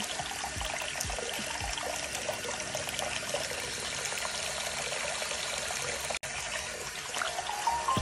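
Thin stream of water running from a bathroom sink faucet and splashing into the basin, steady, with a brief break about six seconds in.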